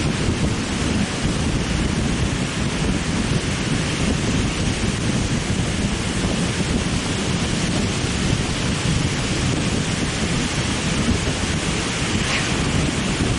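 Wind buffeting the camera's microphone in a steady low rumble, over the hiss of surf breaking on a choppy sea.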